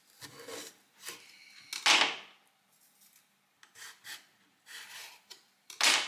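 Irregular rubbing and scraping noises of carrots being handled and prepared, in about six separate strokes. The loudest comes about two seconds in and another near the end.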